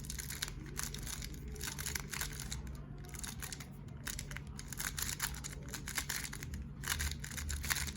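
A speedcube being turned very fast over and over in the sledgehammer sequence (R' F R F'), making a rapid, continuous clatter of plastic layer-turn clicks.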